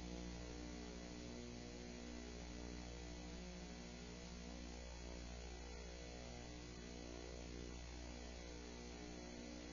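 Faint, steady electrical mains hum: one low tone with a stack of evenly spaced overtones, unchanging throughout.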